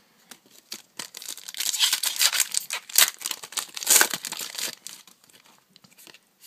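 Foil trading-card booster pack wrapper crinkling and tearing as it is handled and ripped open, a dense crackle for about four seconds that dies away near the end.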